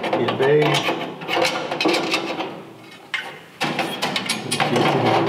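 Stainless-steel flame tamers clattering and scraping against the gas grill's steel firebox as they are fitted into holes at the back and dropped into their notches. The sound comes as three bursts of short metallic knocks and scrapes, with brief ringing.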